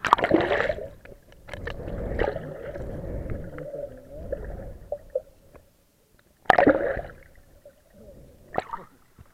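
Water splashing as the camera plunges under, then muffled underwater gurgling and sloshing heard through the submerged camera housing, with a second splash about six and a half seconds in.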